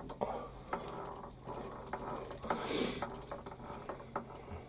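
Scattered light metallic clicks and taps as a lathe's four-jaw chuck is turned by hand and a jaw is adjusted with the chuck key, with a short rustle about halfway through.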